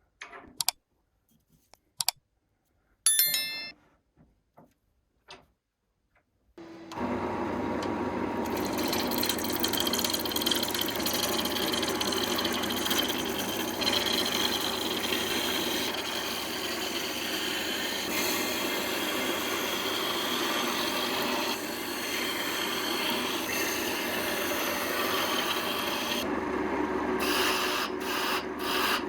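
A few scattered clicks and knocks, one with a short ringing tone. About seven seconds in, a wood lathe starts up and runs steadily while something rubs against the spinning wood. Near the end the rubbing breaks into short separate strokes.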